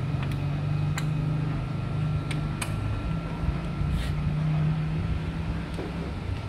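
Sharp clicks of plastic buckles and strap hardware, handled several times while a delivery bag is strapped onto a motorcycle's rear rack, over a steady low hum.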